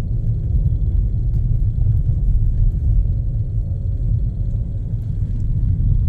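Steady low rumble inside a car's cabin while it drives slowly on a snow-covered road: tyre and road noise on packed snow with the engine running underneath.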